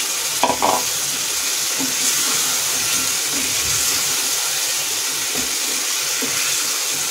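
Steady sizzling hiss of a tomato-onion masala cooking in a hot kadhai, with water and boiled potatoes just added.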